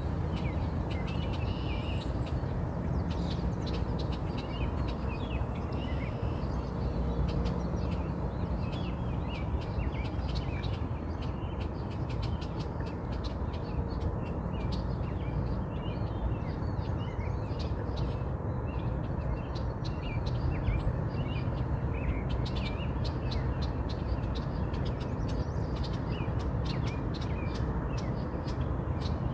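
Small birds chirping and twittering in frequent short calls throughout, over a steady low background rumble.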